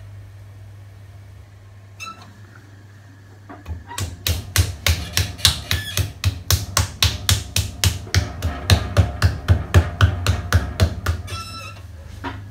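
A hand slapping the sides of a lump of terracotta clay on a potter's wheel head, fast even taps about four a second that start about four seconds in and stop near the end. This is the tapping that centres the clay and fixes it to the wooden bat. A low steady hum sits underneath.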